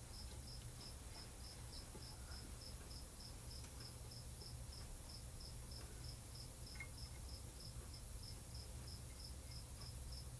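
Insect chirping faintly and steadily, about four high chirps a second, over a low steady hum.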